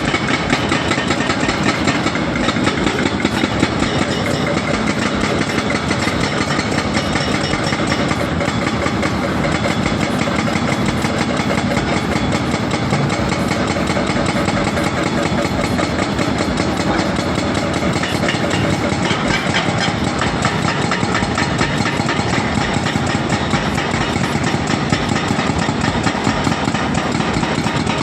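Several excavator-mounted hydraulic rock breakers (FMT F25 and F45) hammering rock continuously in rapid blows, over the steady running of the excavators' diesel engines.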